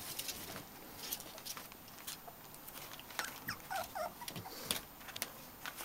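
A litter of young puppies scuffling and playing on bedding in a wooden whelping box: faint scattered claw clicks and scrabbling, with a few short high squeaks and whimpers about three and a half to four and a half seconds in.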